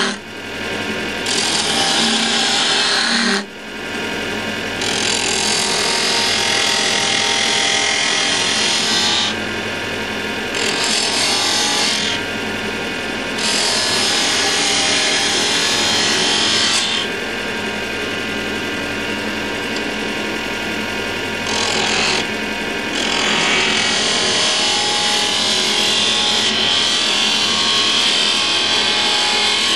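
Axminster wood lathe running while a narrow turning tool cuts into a spinning wooden candlestick blank: a continuous scraping cut over the lathe's hum. The cut grows and fades several times as the tool is pressed in and eased off, and drops out briefly about three and a half seconds in.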